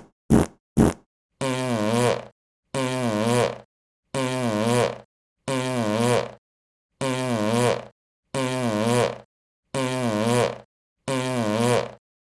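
Fart sound effect: two short farts, then the same drawn-out fart repeated eight times, each just under a second long, wobbling in pitch, with short silences between.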